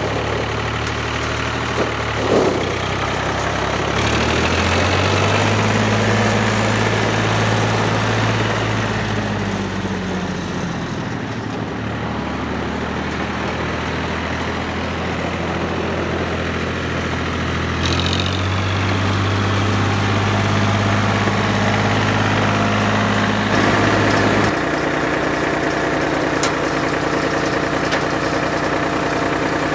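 2002 Farmtrac 35's three-cylinder diesel engine running as the tractor drives. Its pitch rises a few seconds in, drops about ten seconds later, rises again a little past halfway, and settles to a steady lower note near the end.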